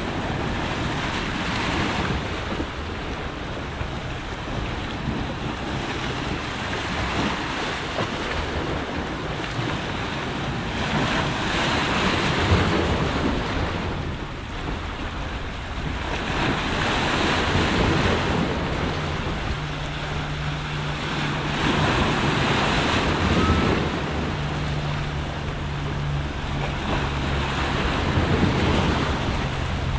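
Sea waves breaking and washing over shoreline rocks, the surf swelling and easing every few seconds. A low steady hum comes in about two-thirds of the way through.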